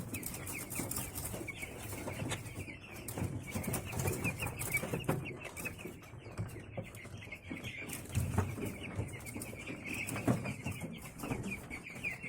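Many week-old broiler chicks peeping continuously, a dense chorus of short high cheeps over low rustling, with a few short sharp sounds among it. The owner hears a chick wheezing and sneezing here.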